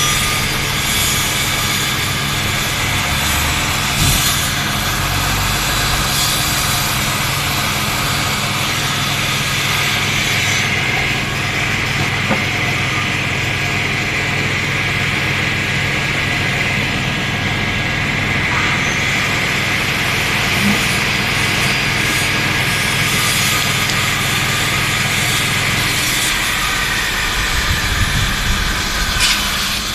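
Woodworking machine running steadily, a low motor hum under a wide hiss; the low hum drops out about four seconds before the end.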